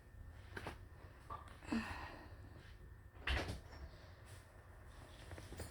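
A few scattered knocks and rustles of things being handled, the loudest a little past three seconds in, over a low steady room hum.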